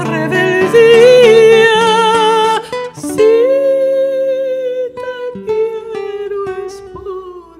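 A woman's solo voice holds two long sung notes with vibrato, the second sinking slowly in pitch and fading, over a plucked acoustic guitar accompaniment.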